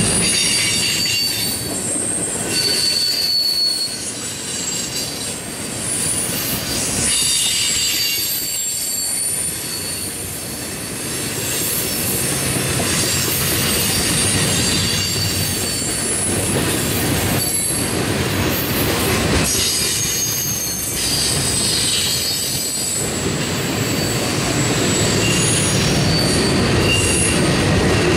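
Railroad tank cars rolling past, steel wheels rumbling on the rails, with short high-pitched squeals from the wheels coming and going throughout.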